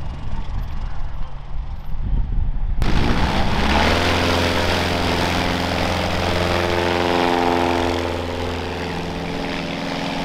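Single-engine propeller bush plane of the STOL type flying low past at high power: a loud, steady engine-and-propeller drone. It comes in suddenly about three seconds in, after a quieter stretch of distant engine noise.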